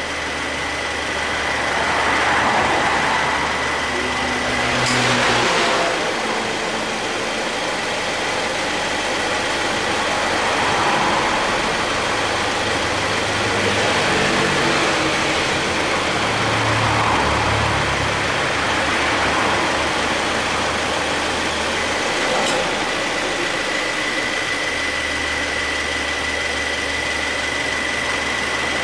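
2013 Subaru Forester 2.0T flat-four engine idling with the air-conditioning compressor running, now free of its earlier abnormal noise after a repair that fixed heavy compressor wear. A steady whine in the background drops out for a stretch in the middle, and there are two sharp clicks, about five seconds in and near the end.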